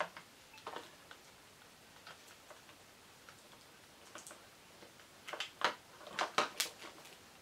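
Light plastic clicks and taps from small plastic parts being handled and fitted together: a few single clicks in the first seconds, then a quick run of louder ones about five to six and a half seconds in.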